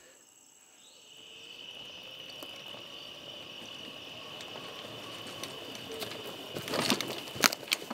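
Night insects calling in a steady high chorus that comes in about a second in. A few sharp knocks and rattles come near the end.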